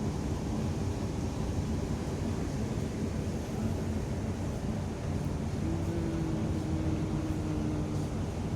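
Steady low drone of a PELNI passenger ship's engines with a rush of wind over the microphone, heard on board.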